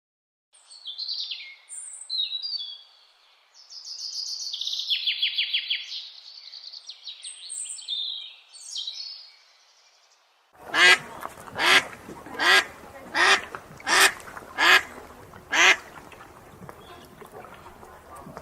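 Animal calls: high chirping and trilling for the first part, then a run of loud calls repeated about once a second.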